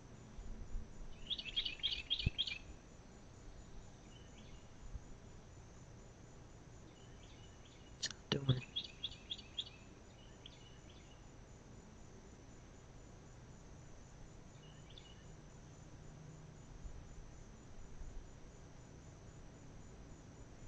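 Short, fast, high-pitched chirping trills of about five notes each from outside, one a second or two in and another about eight seconds in, with a few softer single chirps between and after. A sharp click comes just before the second trill. A faint steady high hum runs underneath.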